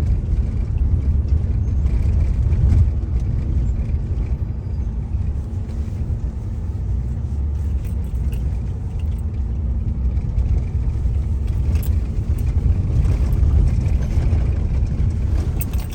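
Car driving along a road, heard from inside the cabin: a steady low rumble of engine and tyres with a faint steady hum.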